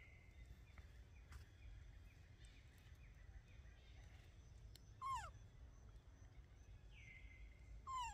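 Faint outdoor background with animal calls. Near the start, and again about seven seconds in, comes a high, thin held note. About five seconds in, and again near the end, comes a short, louder call that falls sharply in pitch.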